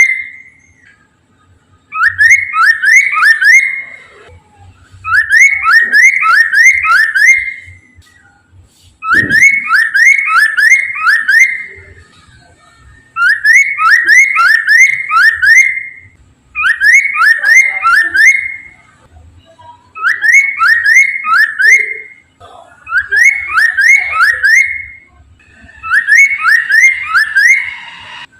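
Poksay mandarin singing loud whistled phrases, each a quick run of four or five rising notes, repeated about every three seconds with short pauses between. A brief low thump about nine seconds in.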